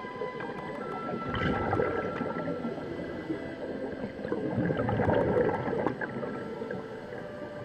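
Underwater bubbling and gurgling, swelling twice, about a second and a half in and again around five seconds in, under several sustained steady tones.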